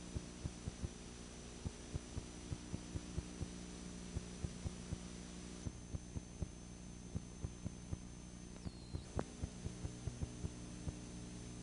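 Electrical hum from blank videotape playback, with irregular low pops about three or four times a second and a thin steady high whine that dips briefly in pitch about nine seconds in.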